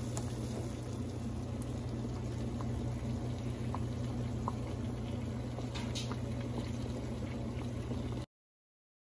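Water boiling hard in a stainless steel pot on a stovetop, a steady bubbling over a low hum, with a few light ticks. It cuts off suddenly about eight seconds in.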